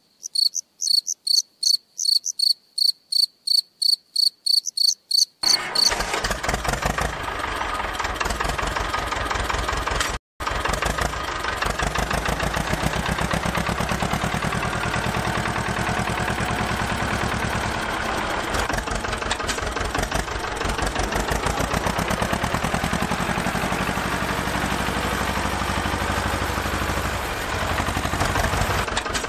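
A high electronic beeping, about two and a half beeps a second, for the first five seconds or so. Then a small motor runs steadily with a rapid low chugging pulse, broken once by a brief dropout about ten seconds in.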